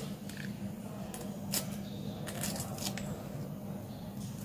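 Small knife peeling the skin off a large ripe avocado: a few soft scrapes and ticks of the blade against the skin, over a steady low hum.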